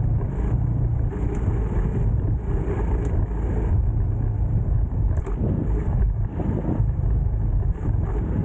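Motorbike engine running steadily while riding, under a constant low rumble.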